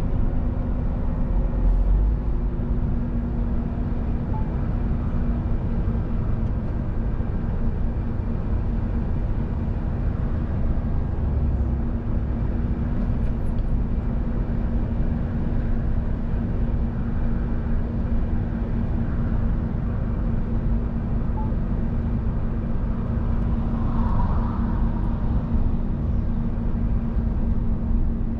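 Scania R500 truck heard from inside the cab while cruising on a motorway: a steady engine drone with a constant low hum, under continuous tyre and road rumble.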